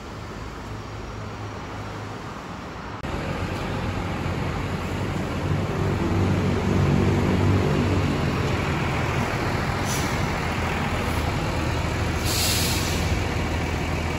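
Hino RM 280 coach's diesel engine running as the bus pulls slowly into the yard, growing louder through the middle. A short hiss of its air brakes comes about ten seconds in and a longer one near the end.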